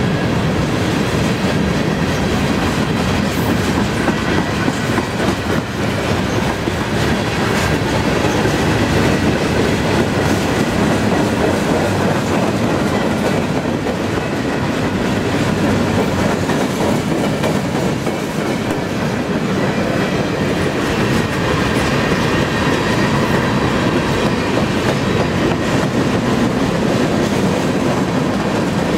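Freight train cars rolling past at about 19 mph: a steady rumble and clatter of steel wheels on the rails.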